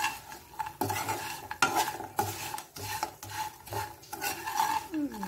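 Spatula stirring and scraping fried taro root (colocasia) slices around a nonstick frying pan in repeated strokes about every half second, with a light sizzle from the pan.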